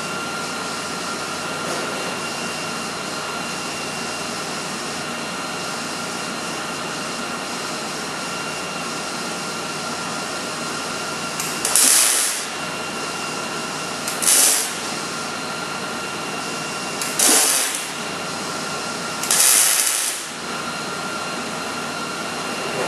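MIG welder arc on steel frame rail: four short welds, each a loud burst of arc noise lasting under a second, a few seconds apart, starting about halfway in. A steady background hum with a high whine runs underneath.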